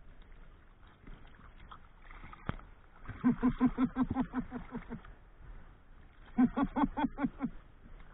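A man laughing in quick, excited bursts, two runs of rapid 'ha-ha-ha' about three seconds in and again near the end, over faint sea and water noise.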